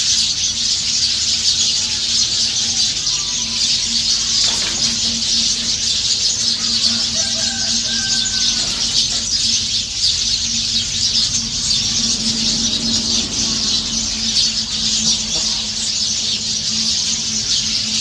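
Dense, continuous high-pitched chattering of a large flock of birds calling together in the trees, with a few clearer calls standing out about halfway through. A low steady hum runs underneath.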